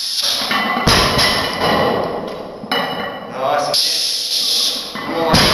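Loaded barbell's rubber bumper plates thudding on the gym floor, twice: about a second in and again near the end, during stiff-leg deadlift reps. Voices murmur underneath.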